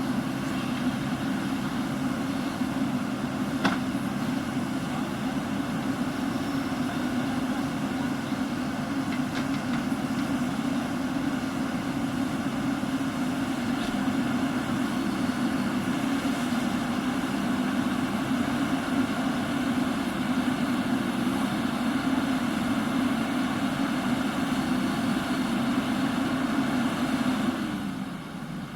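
Diesel engine of a JCB backhoe loader running steadily under work, with one sharp metallic knock about four seconds in. The engine note drops just before the end.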